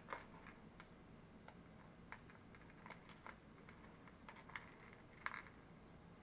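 Faint, irregular light clicks and taps from a child's fingers picking kernels off a corn cob on a plastic plate, the loudest about five seconds in.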